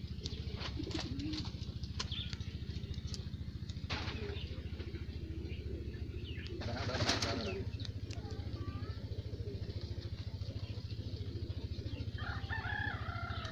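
A pigeon flapping its wings in one brief flurry about seven seconds in, over a steady low hum and a few faint clicks.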